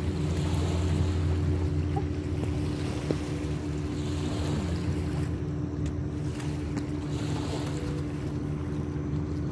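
Motorboat engine running with a steady low drone, with wind noise on the microphone.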